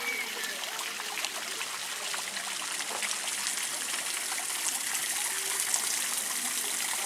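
Public fountain's water splashing and trickling steadily into its stone basin, slowly growing louder.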